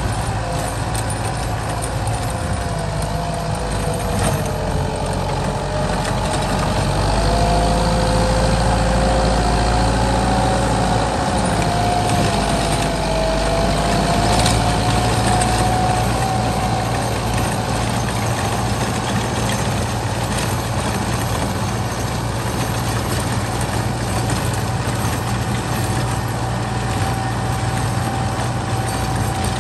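Kubota M8540 tractor's four-cylinder diesel engine running steadily under load while driving a rear-mounted rotary tiller through sandy soil, with a wavering whine over the engine note that fades out midway and returns near the end.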